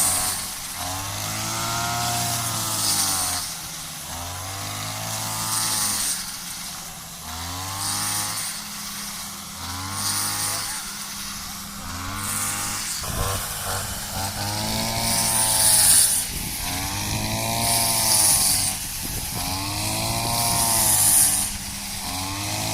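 Small engine revved up and let back down over and over, about once every two seconds, over a steady low running note.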